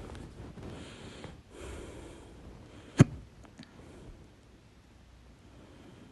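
A person's loud hiccup about three seconds in, a single short, sharp catch in the throat, with soft breathing before and after it.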